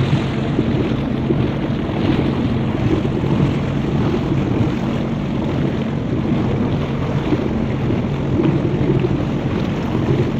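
Jet ski engine running at a steady speed, with rushing water and wind buffeting the microphone.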